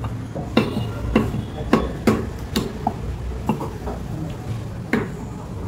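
Meat cleaver chopping goat meat on a wooden stump chopping block: a run of sharp strikes about every half second, then a pause and one more strike near the end, over a steady low background hum.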